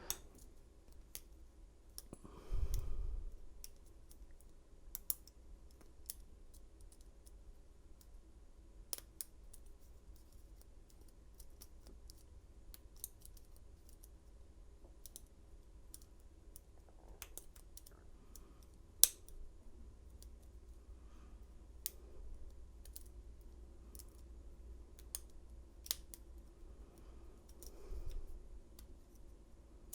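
Lock pick and tension wrench working in an old Yale padlock's pin tumblers: faint, irregular metal clicks and scrapes, with a sharper click about 19 seconds in. Dull handling thumps come near the start and near the end.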